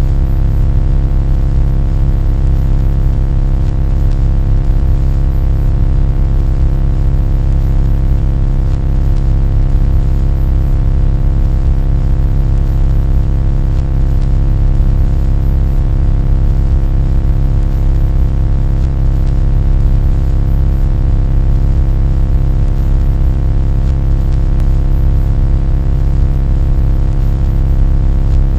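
A loud, steady, low droning hum with many overtones that holds unchanged throughout.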